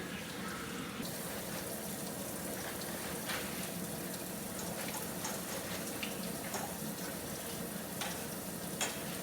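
Food frying in a pan: a steady sizzle with a few small pops and clicks.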